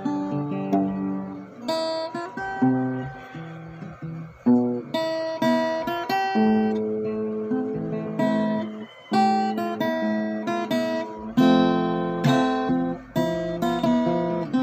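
Solo acoustic guitar played fingerstyle: a melody of plucked single notes over bass notes, each note ringing and fading, with a few fuller strummed chords near the end.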